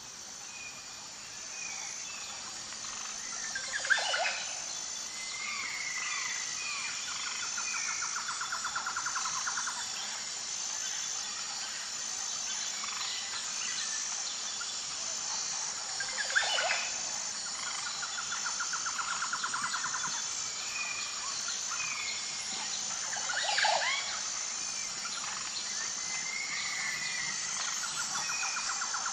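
Woodland nature ambience: a steady high chirring of insects with an even pulse, under scattered bird chirps and short trills. Three loud, brief rising calls stand out, about 4, 16 and 23 seconds in.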